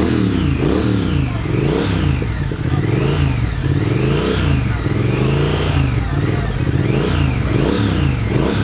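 Triumph motorcycle engine being revved in repeated throttle blips, the pitch rising and falling about once a second.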